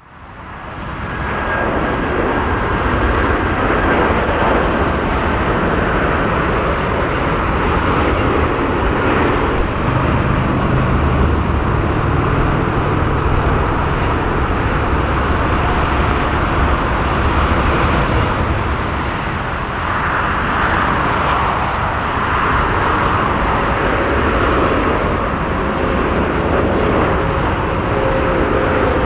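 Steady jet engine noise from heavy airliners landing: first a McDonnell Douglas MD-11 freighter on the runway, then, after a brief dip, a Boeing 777-300ER with GE90 engines on final approach, with a faint rising whine near the end.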